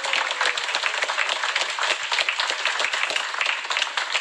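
Audience applauding: many hands clapping at once in a dense, steady run of claps.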